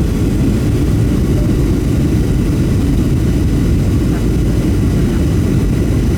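Steady cabin rumble of a Boeing 737-700 in flight, heard from a passenger seat: the CFM56-7B engines and the airflow past the fuselage make a constant low roar.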